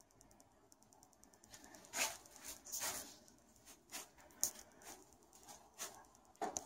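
Footsteps and rustling of someone moving about: a string of short, irregular scuffs, the loudest about two seconds in and again near the end.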